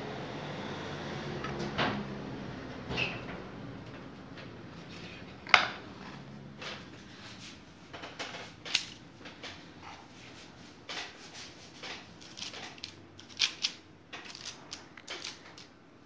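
Chocolate dough log rolled under the palms on a wooden board, giving a low rumble for the first few seconds, followed by a scatter of light knocks and clicks as the cut pastry rolls and kitchen tools are handled and set down on a baking tray. The sharpest knock comes about five and a half seconds in.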